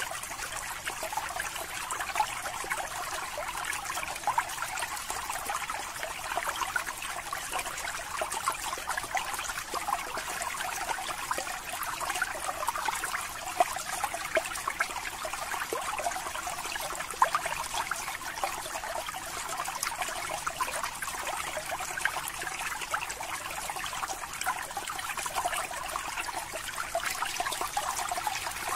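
Aquarium water trickling and bubbling steadily, a fine crackle of small splashes with a few slightly louder pops, as air bubbles rise and break at the surface of the planted tank.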